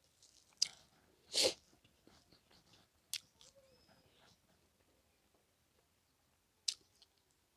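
A person eating close to the microphone: a few sharp clicks of mouth or utensils and one short, loud, breathy mouth noise about one and a half seconds in.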